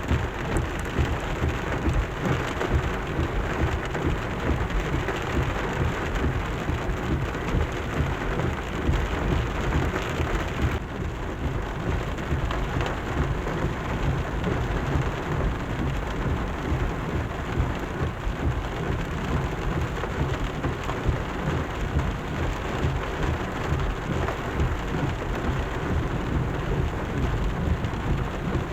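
Torrential rain pouring down in a steady, dense rush, with a deep rumble underneath.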